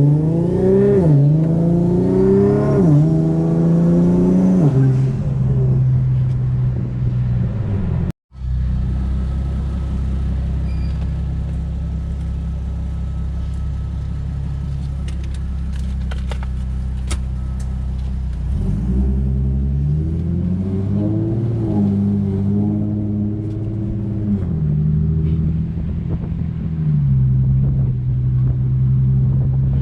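Car engine pulling at full throttle through the gears: the pitch climbs and drops back at each upshift three times in the first few seconds, then settles into a steady drone. A second set of climbing pulls with quick shifts comes in the second half, before it settles again.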